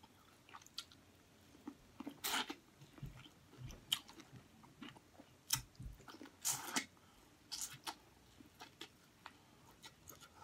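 A person biting and chewing sauce-soaked corn on the cob, with close mouth sounds: irregular short smacks and clicks.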